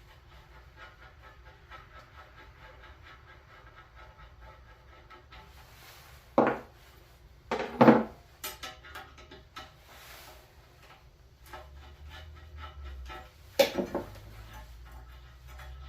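Several short, loud knocks and clunks from heavy parts being handled and set down during the unboxing of a lathe, three standing out, over faint music.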